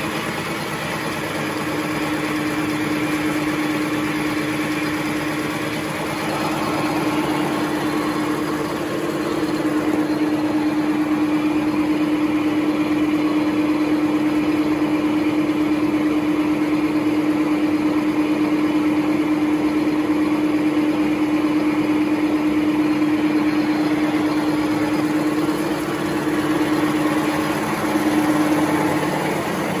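High-speed two-colour napkin paper making machine running at about 1080 sheets a minute: a steady mechanical hum with one constant drone over a fast, even rattle.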